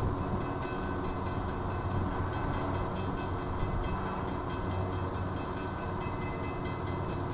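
Approaching Florida East Coast Railway freight train: a steady low diesel rumble, with a grade-crossing bell ringing rapidly above it.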